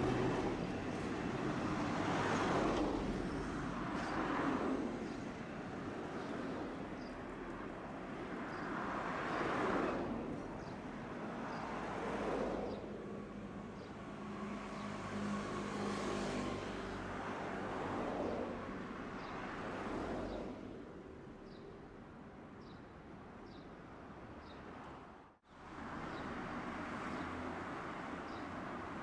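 A Tosaden streetcar running along a city street, heard from inside, with road traffic passing in a series of rising-and-fading swells of noise. After about 20 seconds it settles to a quieter steady rumble with faint regular ticking. The sound cuts out for an instant a few seconds before the end.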